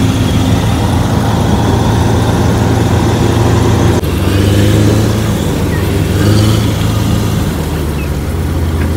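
Sunflower threshing machine running steadily, its engine humming while belts, pulleys and chain drives turn. The sound changes abruptly about four seconds in.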